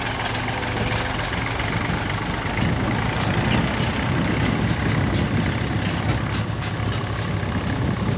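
Combine harvester running steadily as it cuts wheat: a continuous low engine hum under the dense noise of the threshing machinery.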